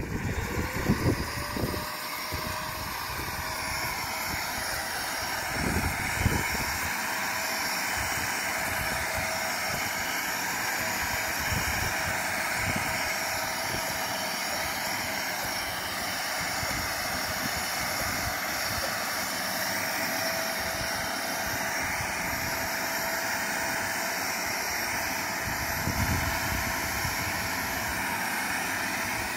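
Electric pond vacuum starting up and then running steadily, a motor whine over a constant hiss as it sucks sludge from the pond bottom through its pole nozzle. A few dull knocks come along the way.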